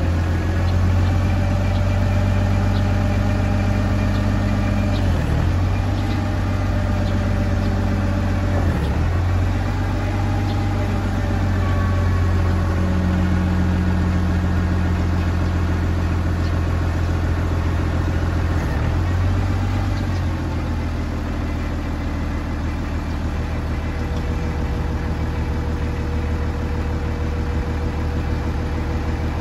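TCM SD25Z6 wheel loader's Isuzu six-cylinder diesel engine runs steadily while its hydraulics lift the long boom and curl the bucket. The engine note dips briefly a few times.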